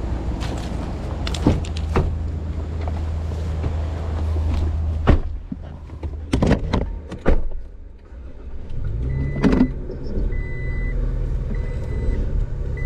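A vehicle door being shut with a loud thud, then clicks and handling noises inside the cab. About three seconds later the engine starts and runs with a steady low hum, while a warning chime beeps about once a second.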